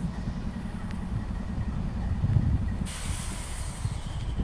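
Diesel freight locomotives running with a low, steady rumble. About three seconds in, a sharp hiss of compressed air blowing off from the locomotives' air brake system starts suddenly and lasts about a second and a half.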